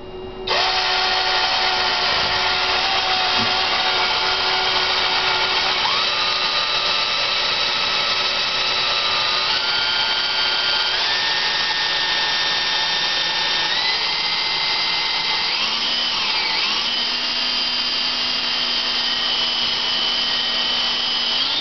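Electric drill switched on about half a second in and running continuously, spinning a speedometer sending unit; its motor whine steps up in pitch several times as it speeds up toward full speed.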